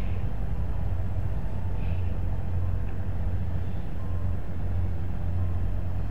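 Steady low outdoor rumble with no clear single source, and a couple of faint, brief high chirps near the start and about two seconds in.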